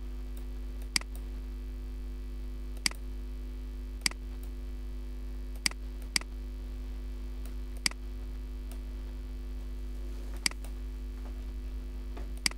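Computer mouse clicking, single sharp clicks at uneven intervals every second or two, over a steady electrical mains hum.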